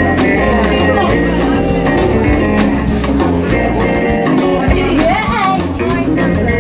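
Jazz band music: guitar over a walking bass line and a steady beat, with a melody line that bends up and down about five seconds in.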